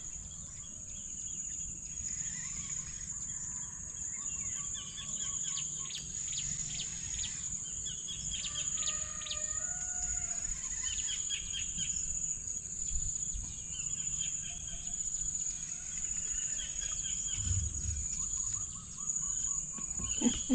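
Birds calling in short repeated chirps and brief whistled notes over a continuous high-pitched insect drone.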